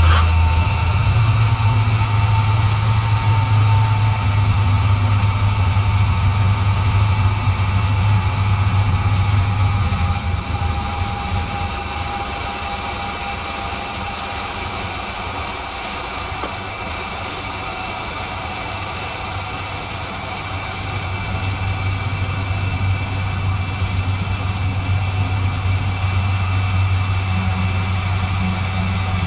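A 2003 Chevrolet Silverado's engine idling steadily while its engine-driven air-suspension compressor runs, jumpered straight to the battery, to fill the tanks and raise the truck. The steady low hum eases off about ten seconds in and comes back up after about twenty seconds.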